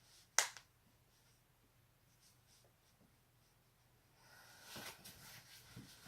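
A person's neck joint cracking with one sharp pop about half a second in, followed at once by a smaller crack. Faint rustling of movement starts about four seconds in.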